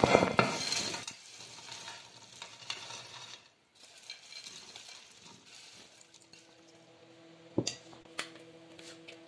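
Cubes of fried potato tipped from a glass bowl into a glass baking dish, clattering loudly for about the first second, then softer rustling as they are spread by hand. Two sharp knocks come near the end, over a faint steady hum.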